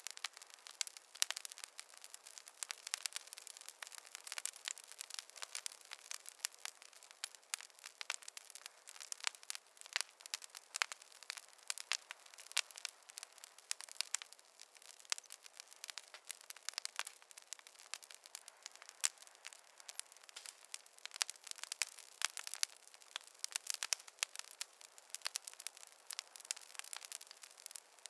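Campfire crackling: a dense, irregular run of small pops and snaps from burning wood, bright and thin with no low rumble.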